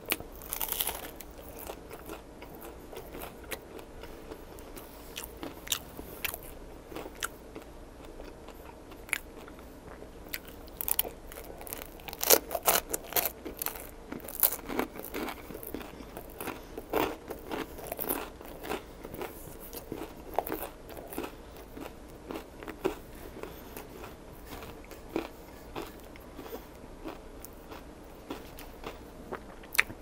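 A person chewing bites of a toasted-bread sandwich close to the microphone: repeated crisp crunches and mouth sounds, coming thickest about twelve to fifteen seconds in.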